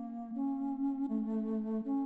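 Background music: a soft woodwind-like melody of long held notes, changing pitch about once a second.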